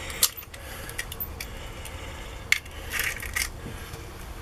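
A hen's egg being broken open over a plastic mixing bowl: a few sharp clicks and crackles as the shell is pulled apart and handled, the loudest near the start and about halfway through.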